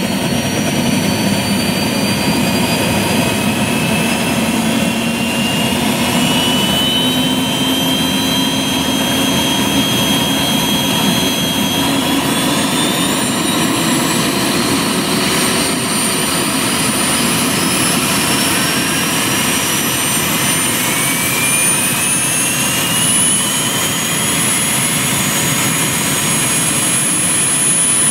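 Giant radio-controlled Kamov Ka-32 coaxial helicopter running up on the ground: its engine and two counter-rotating rotors spool up with a loud whine that slowly climbs in pitch.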